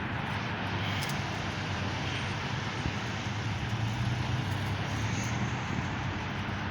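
Steady outdoor background noise: a low engine-like drone under a constant hiss, with no sudden bangs.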